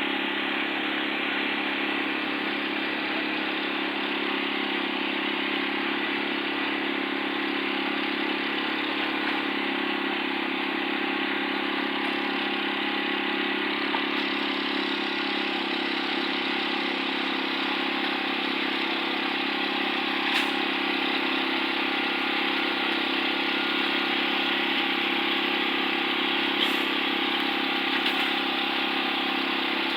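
Concrete mixer's engine running steadily at an even speed, with a couple of faint knocks.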